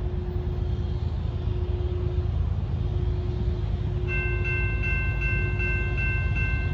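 A railway level-crossing bell starts ringing about four seconds in, a clear ding repeating about three times a second, over a steady low rumble.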